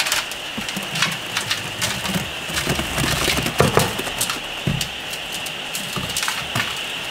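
Thick rice and urad dal idli batter sliding and plopping out of steel pots into a large vessel, with scattered short clicks and knocks, over a steady hiss of rain.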